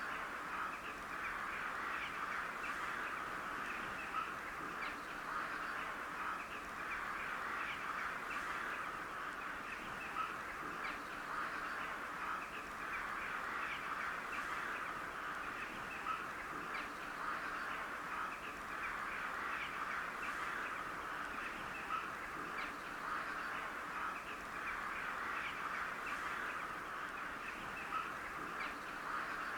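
Crows calling, a steady chatter of many short bird calls with a louder single caw standing out every few seconds.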